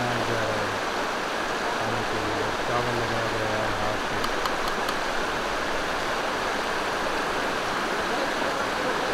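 Mountain stream rushing steadily over rocks. Faint low voices in the first few seconds and a few quick light clicks about four and a half seconds in.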